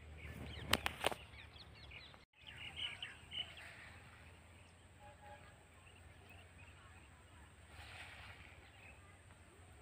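Faint open-field background with small birds chirping on and off over a low steady hum, and three sharp clicks about a second in.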